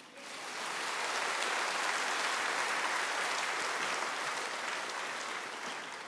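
Audience applauding: the clapping builds over the first second, holds, then slowly fades toward the end.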